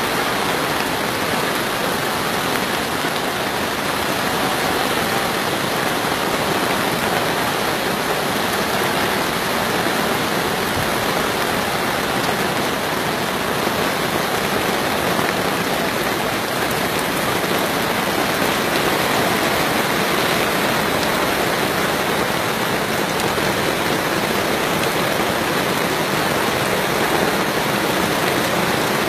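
Heavy downpour: torrential rain falling in a steady, unbroken hiss.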